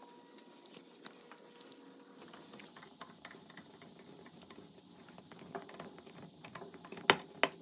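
Threaded insert being turned into a wooden tabletop on a bolt-and-nut driver: scattered light metal ticks and clicks, with two sharp clicks near the end.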